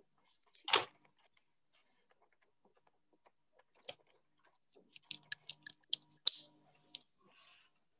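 Light scattered clicks and taps: one sharper click just under a second in, then a quick run of sharp ticks about five to seven seconds in, with a faint hum beneath them.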